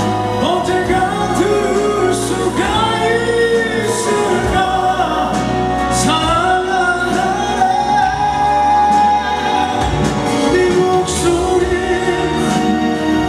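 Male vocal group singing live over musical accompaniment, with a long held note about eight seconds in.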